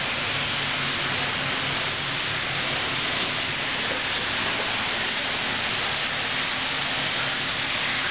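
Steady, even hiss like rushing water, with a faint low hum underneath: the background noise of a large aquarium hall.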